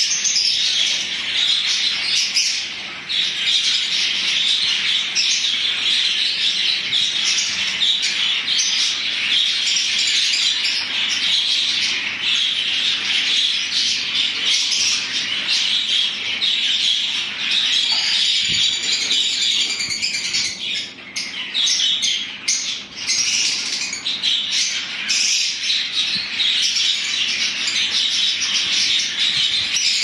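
A flock of lovebirds chattering and squawking continuously in an aviary, the dense chatter thinning briefly about two-thirds of the way through.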